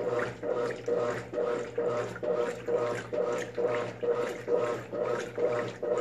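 Brastemp top-loading washing machine in its wash cycle: the agitator swishing back and forth, churning the clothes and soapy water in an even rhythm of about three strokes a second, over a steady motor hum.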